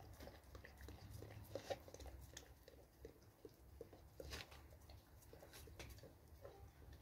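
A dog lapping water from a stainless steel bowl: faint, quick wet laps, about three or four a second.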